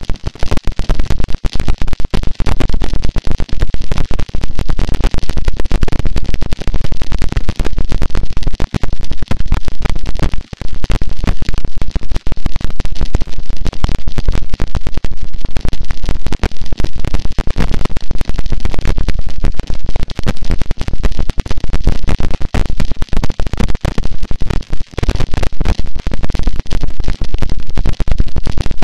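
Harsh noise wall: a loud, unbroken wall of distorted static, heaviest in the low end and flickering with many brief cut-outs.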